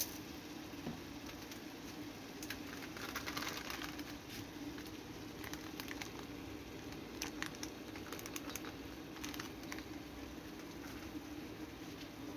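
Chicken gizzards and hearts cooking in a pot, with scattered light crackles and pops over a steady low hum.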